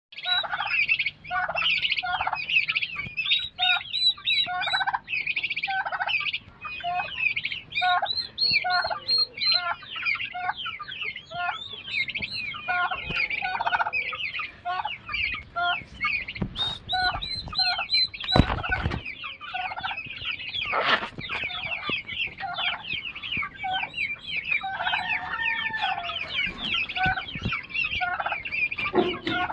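Young turkey poults and chicks peeping constantly in high, rapid chirps, with lower repeated clucking calls from the adult turkey about twice a second. A single loud thump comes about eighteen seconds in.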